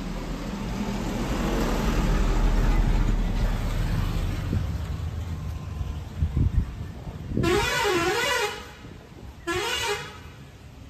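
A motor vehicle passes on the road with a rising then fading rumble, then a vehicle horn sounds twice with a warbling, wavering pitch: a longer blast and then a shorter one.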